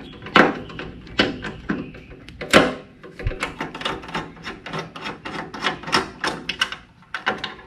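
Hand ratchet with a 4 mm Allen socket clicking as it loosens a tank-cover bolt: a few separate louder clicks in the first three seconds, then quick uneven runs of clicks.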